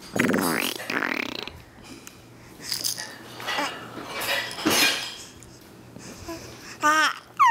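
Baby's vocal sounds: a low, rough grunting sound in the first second or so, breathy noises in the middle, and a short high squeal near the end.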